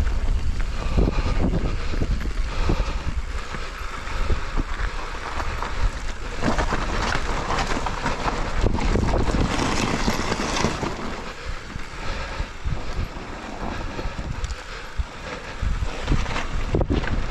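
Wind buffeting an action camera's microphone on a fast mountain-bike descent, with the knocks and rattles of the bike's tyres and frame over rough, loose dirt. The hiss grows louder for several seconds midway, then eases.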